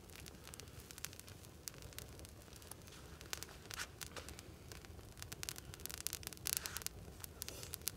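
Wood campfire of gathered branches crackling, with sharp snaps and pops that come thicker in the second half, and a couple of short hisses.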